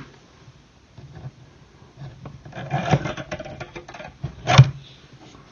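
Small hand tool scraping against the wooden hull and mouldings of a model ship, with a short run of rasping about two and a half seconds in and one sharp click about four and a half seconds in.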